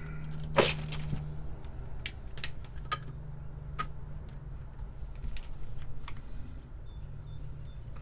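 Handling noise from wires and test leads: a few sharp clicks and taps, the loudest about half a second in, over a low steady hum.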